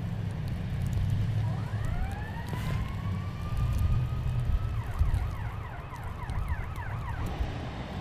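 Emergency vehicle siren winding up into a steady wail, then switching to a fast warbling yelp of about four cycles a second, over the low rumble of slow-moving traffic.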